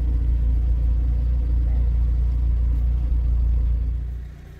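Steady low rumble that drops away about four seconds in.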